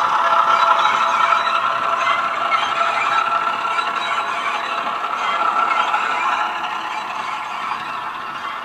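Hornby Class 08 shunter model running with its DCC sound decoder playing a Class 08 diesel engine sound through the model's small speaker, along with the model's wheels running on the track. The sound is steady, with a few held tones, and fades slowly as the train moves away.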